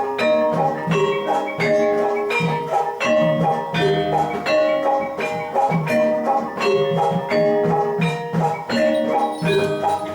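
Javanese gamelan music for jathilan: metallophones ringing out a repeating melody over a steady struck beat.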